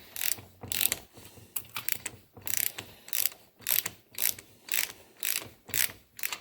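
Ratchet wrench being worked back and forth in short strokes, about two a second, each stroke a quick burst of pawl clicks, as it backs loosened cylinder-head nuts off rusty studs on a VW Type 1 engine.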